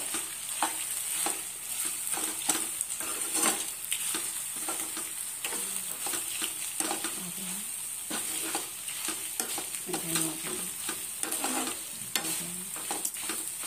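Gongura and spinach leaves frying with garlic and tempering spices in a non-stick kadai, sizzling steadily while a metal spoon stirs and scrapes them, with frequent irregular scrapes and taps of the spoon on the pan.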